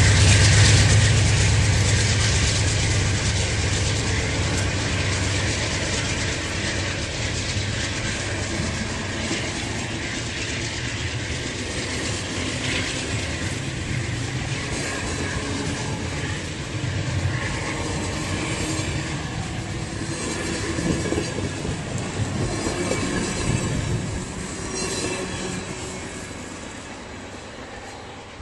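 Amtrak Southwest Chief passenger train rolling past. The strong low rumble at the start weakens within the first few seconds, and the rolling noise of the cars then fades gradually as the train moves away.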